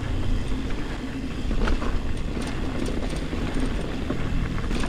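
Ibis Ripmo mountain bike rolling fast downhill on dry, loose, bumpy dirt singletrack: a steady rumble of tyres on dirt, with the chain and frame clicking and rattling over bumps.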